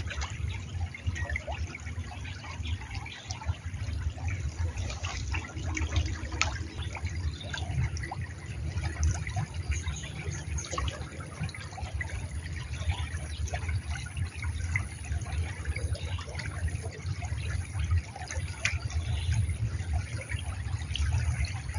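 Stream water trickling steadily, under a low, uneven rumble with scattered small clicks.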